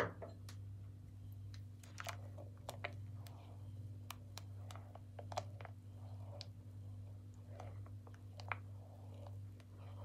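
Faint irregular clicks and small pops from a pan of milk simmering on a low flame as lemon juice curdles it, over a steady low hum.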